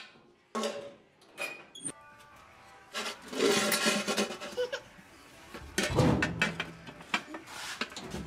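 Knocks and clatter of a truck bench seat being moved and lifted out of the cab, with heavy thumps about six seconds in. Earlier there are a toddler's voice and taps on a can.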